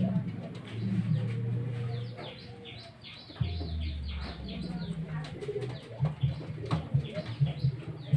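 Birds calling: many short, high chirps over low, drawn-out cooing notes. The chirps are likely the pet parrot.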